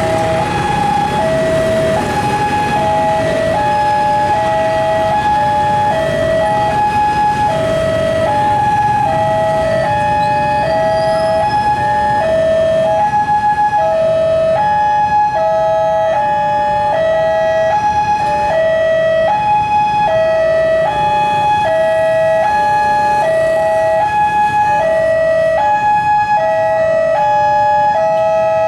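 Railway level-crossing warning alarm sounding continuously, an electronic two-tone signal switching back and forth between a higher and a lower tone, over a steady low rumble of traffic.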